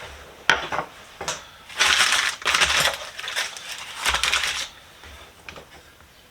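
Tools being handled and unwrapped: a couple of sharp metal clicks, then packaging crackling and tearing in bursts, quieter toward the end.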